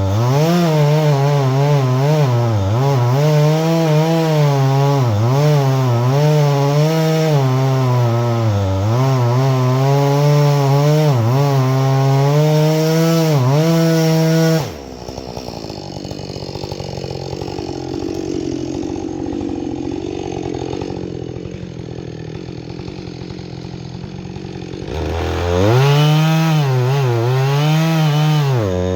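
Husqvarna 562XP two-stroke chainsaw cutting through a large white pine at high revs, its pitch dipping again and again as the chain bogs in the wood. About halfway through the saw's note breaks off suddenly into a quieter stretch of about ten seconds, then the saw comes back at full revs near the end.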